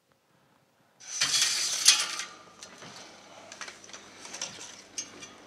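An 8 mm film projector being set up and handled: a loud rush of mechanical noise about a second in, lasting about a second, then irregular clicks and clatter of its parts.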